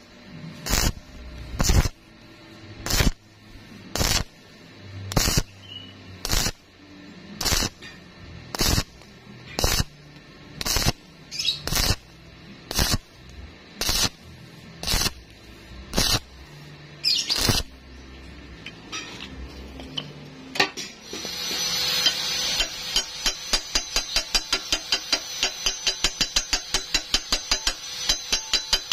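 Stick-welding arc on thin steel tube, struck in short crackling bursts about once a second: the stitch technique, pausing between bursts so the thin metal does not burn through. Near the end comes a quick run of metallic hammer taps, about four a second, chipping slag off the weld bead.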